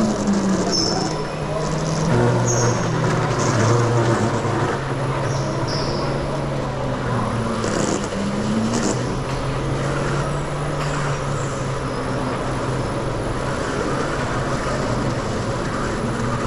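Electric go-kart driving at speed, heard from onboard. The electric motor's whine shifts and glides in pitch with speed over a steady rush of tyre and wind noise. Short high squeals come now and then as the tyres slide through corners.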